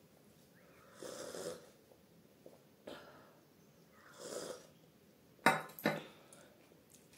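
Two slurping sips of tea from a stainless-steel tumbler, then two sharp clicks as the metal tumbler is set down on the table.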